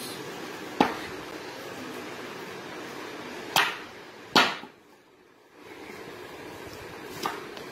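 Heavy curved chopping knife striking raw green mangoes on a wooden log: four sharp chops, two close together in the middle, over a steady low hiss.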